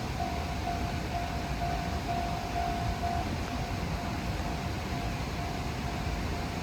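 Japanese level-crossing warning bell ringing in evenly repeated dings, about two a second, growing fainter about three seconds in, over the steady low rumble of a train passing through the crossing.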